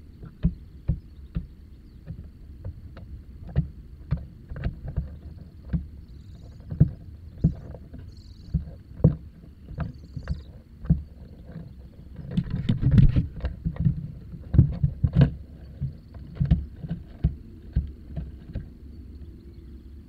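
Irregular dull knocks and scrapes, one or two a second, with a denser bout of scuffing about two-thirds of the way through, over a faint steady high whine.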